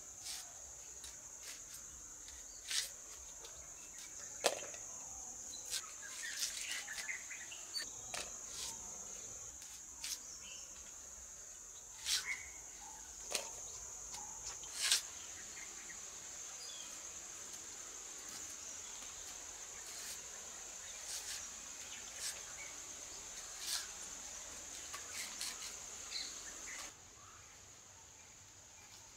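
Red onions being cut against a fixed curved blade: scattered sharp clicks and snaps of the blade going through the onion, over a steady high-pitched insect drone that drops away near the end.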